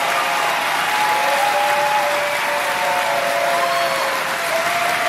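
Large rally crowd applauding and cheering, a steady wash of clapping with shouting voices rising above it.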